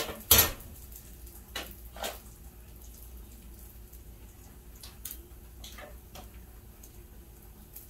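One sharp knock just after the start, then a few faint clicks scattered through, over a low steady hum.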